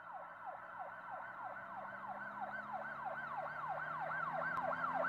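Emergency-vehicle siren in a fast yelp, its pitch sweeping up and down about three times a second and growing steadily louder.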